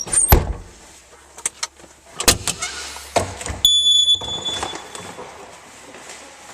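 Knocks and clunks in the cab of a Bobcat S205 skid steer, then a single high electronic beep from its panel, about half a second long, a few seconds in, over a faint low hum.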